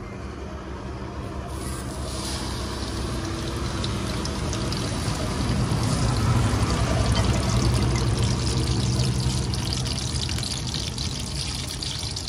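Whole salted mullet frying in hot oil in a wok, sizzling and crackling. The sizzle starts about a second and a half in and grows louder, loudest in the middle.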